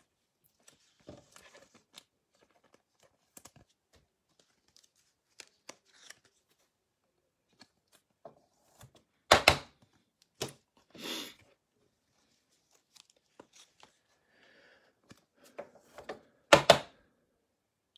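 Basketball trading cards being handled and slid into clear plastic sleeves: scattered soft clicks and rustles of card and plastic, with two louder brief sounds, one about nine seconds in and one near the end.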